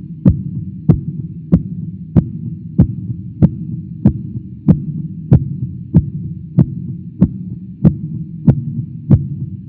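Title-sequence sound effect: sharp, evenly spaced ticks, about three every two seconds, over a steady low drone.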